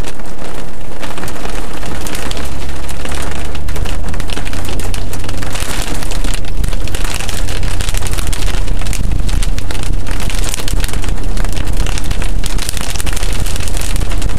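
Loud rain pelting a car's roof and windshield, heard from inside the car, a dense crackle of drop strikes. About two seconds in, a low rumble rises underneath as the car pulls away on the wet road.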